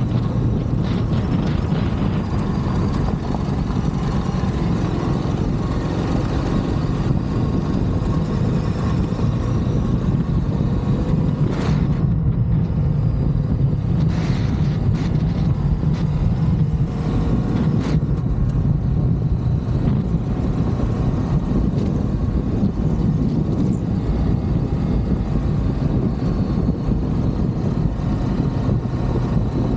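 Ducati DesertX's 937 cc V-twin engine running at a steady cruise on a gravel road, with wind and tyre noise, and a few brief ticks or knocks around the middle.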